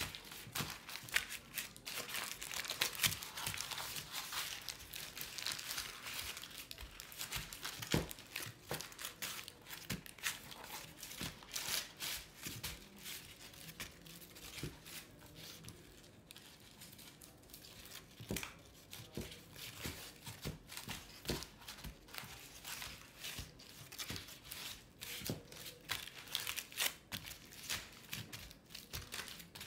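Crumpled tissue paper crinkling and rustling under the hands as it is pressed, smoothed and folded down onto a glue-coated canvas. Irregular crackles, busier in the first several seconds.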